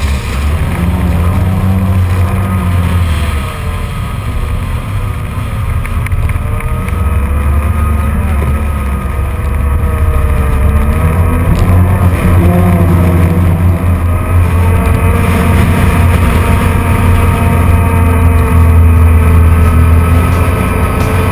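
Off-road vehicle engine running as it drives over sand dunes, its pitch rising and falling with the throttle. A heavy low rumble of wind on the camera microphone runs under it.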